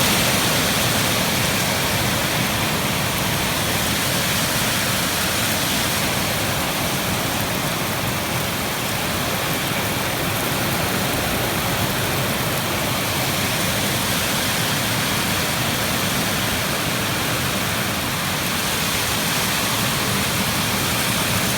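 Heavy storm rain pouring down, a steady even hiss.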